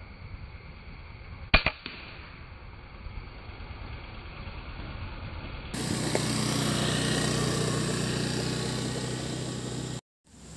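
A single air-rifle shot about one and a half seconds in: a sharp crack followed almost at once by a smaller snap. After a cut, a steady rushing noise with a low hum runs for about four seconds, then cuts off near the end.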